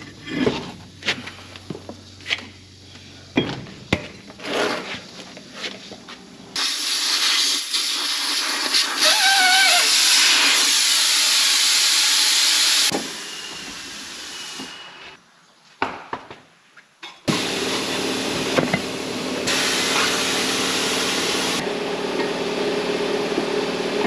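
Knocks and clanks as a dual truck wheel is handled, then a loud rush of hissing air for about six seconds that cuts off sharply. Near the end a tire-changing machine runs steadily, with clanks from the tire tool.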